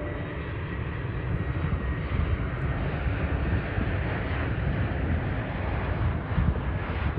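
Airbus A321 airliner on final approach to land, its jet engines a steady rushing rumble that grows a little louder as the aircraft nears the runway.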